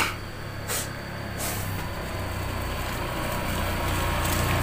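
Small motor scooter riding up a dirt track toward the listener, its engine hum growing steadily louder as it approaches. A sharp click at the very start.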